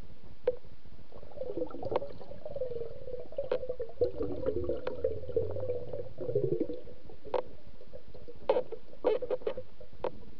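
Underwater sound picked up by a speargun-mounted camera in murky river water: a steady faint hum with scattered sharp clicks, and a wavering, warbling sound over a low rumble for a few seconds in the middle.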